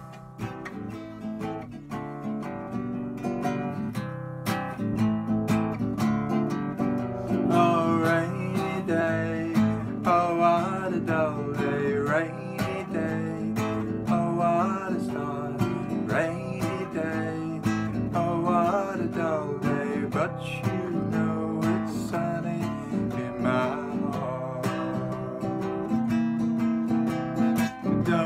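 Steel-string acoustic guitar strummed in a steady rhythm, with a man's voice singing along from about eight seconds in.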